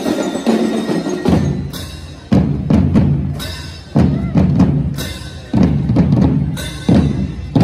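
Drum and lyre corps playing: marching drums with a heavy beat about every second and a half, each fading out, with faster drum strokes and ringing bell lyres over it.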